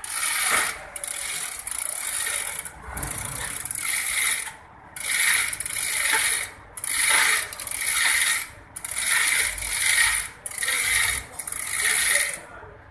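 Repeated hissing scrape strokes, each about a second long and coming about every two seconds in an even rhythm.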